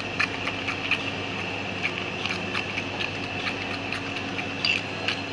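A spoon stirring beaten egg with chopped tomato and onion in a ceramic bowl, the spoon clicking lightly and irregularly against the bowl, over a steady background hum.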